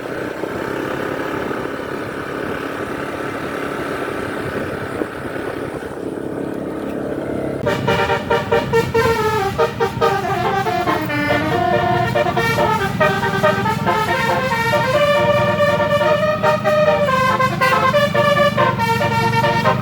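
Bus engine and road noise running steadily, then from about eight seconds in a telolet horn, the set of electric multi-tone air horns on Indonesian buses, plays a tune of changing notes over the engine's low drone.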